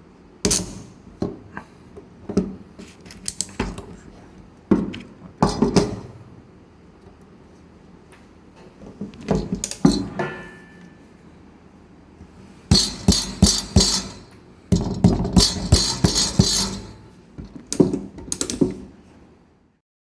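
Stainless steel band strap and buckle clinking and rattling as they are handled, in clusters of sharp metallic clicks with quiet pauses between.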